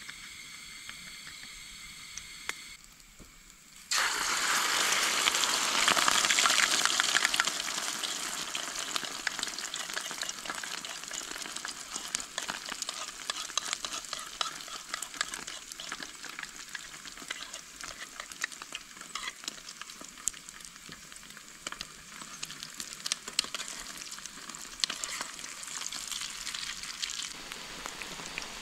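Eggs frying in hot oil in a pan on a portable gas camping stove. A loud sizzle starts suddenly about four seconds in, crackling with small pops, and slowly settles over the following seconds.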